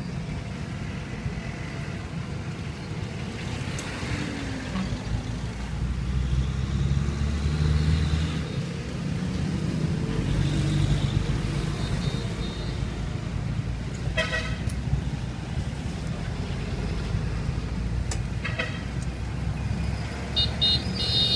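Street traffic with engines running close by, a steady low rumble, and short vehicle-horn beeps about two-thirds of the way through, again shortly after, and in a quick series near the end.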